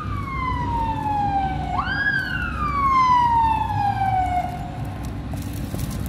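Emergency vehicle siren wailing: a tone sliding slowly down, swooping back up about two seconds in, then sliding down again and fading, over a low steady rumble.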